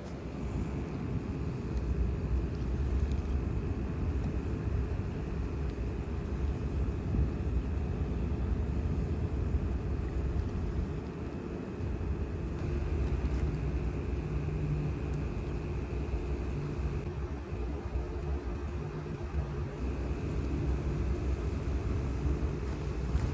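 An engine running steadily with a low rumble and a constant whine, with wind buffeting the microphone.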